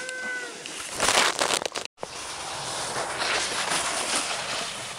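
Snowboard sliding and scraping over thin, wet snow, louder for a moment about a second in, with a short shouted call at the start and faint voices. The sound drops out abruptly for an instant about two seconds in.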